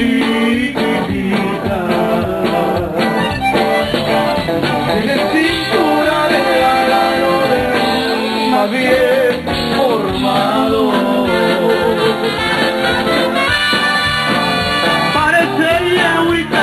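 Live Tejano band music playing loudly, with sustained melodic lines over the band.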